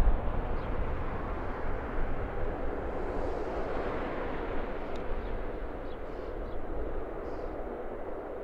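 Jet aircraft engine roar, a broad rumbling noise that is loudest at the start and slowly fades.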